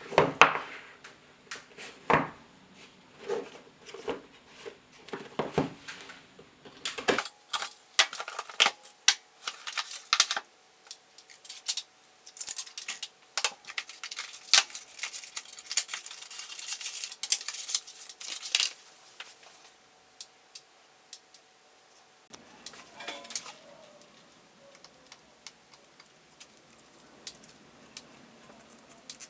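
A smartphone box and its packaging being opened and handled. It starts with a series of taps and knocks, then from about seven seconds in a long run of dense crackling, clicking and scraping, and fades to faint handling noise near the end.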